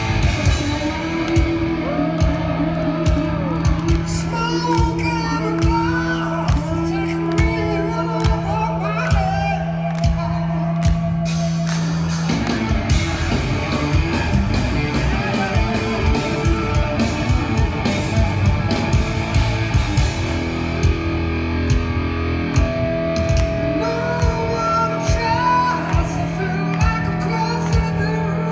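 Live rock band with electric guitar, bass and drums and a male lead vocal, heard from the audience in a large hall.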